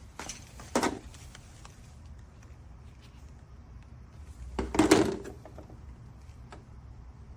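Two knocks, about four seconds apart, the second louder and longer like a clatter, with a few faint ticks between them over a steady low hum.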